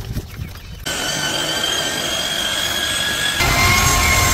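An electric machine's motor running, a steady hiss with a whine. It starts abruptly about a second in, then about three and a half seconds in gets louder and the whine drops to a lower pitch.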